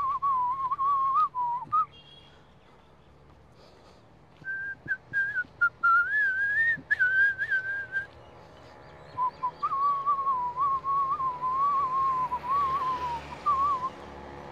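A person whistling a tune in three phrases. The middle phrase is pitched higher, and there is a pause of about two and a half seconds after the first.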